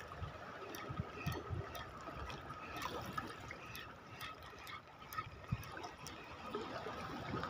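Small waves of seawater lapping and trickling among shallow shoreline rocks, with scattered faint clicks.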